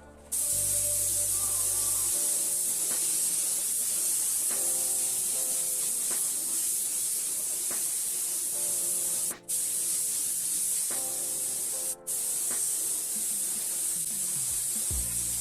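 Steady hiss of a pressurised spray, held in long bursts with two brief pauses about nine and twelve seconds in, over background music.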